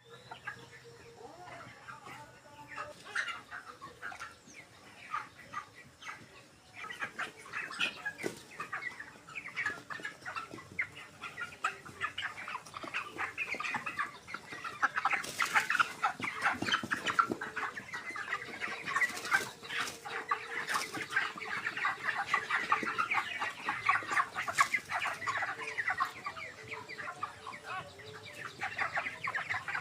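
A flock of 26-day-old broiler chickens peeping and clucking, with many short calls overlapping. The calling grows busier and louder about halfway through, and a few sharp knocks sound over it.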